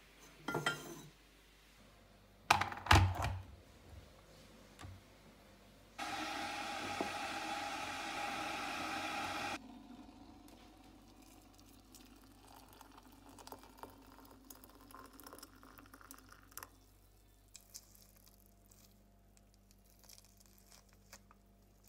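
A ceramic mug taken from a cupboard shelf with a clink, then set down with a few sharp knocks, the loudest sounds here. About six seconds in, a steady rushing noise starts abruptly and stops as suddenly some three and a half seconds later, followed by faint small clicks and handling sounds.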